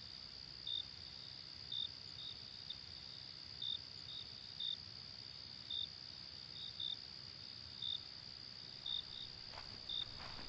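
Crickets chirping at night: a steady high trill under louder short chirps about once a second, some in quick pairs. Faint rustling begins near the end.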